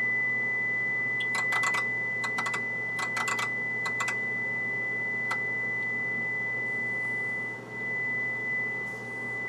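Clicks of front-panel push buttons being pressed on an HP digital oscilloscope, in a few quick runs during the first few seconds. Under them run a steady high-pitched tone and a low electrical hum.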